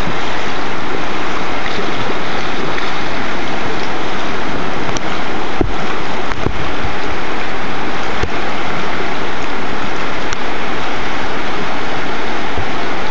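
Whitewater rapids rushing loudly and steadily, heard close to the standing waves, with a few brief low thumps.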